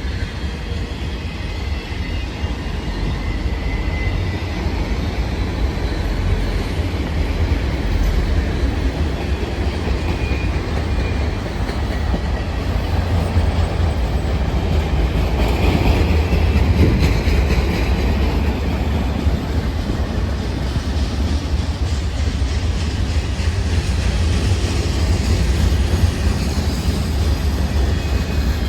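CN freight train cars rolling past at track side, a steady rumble of steel wheels on rail with clickety-clack over the joints.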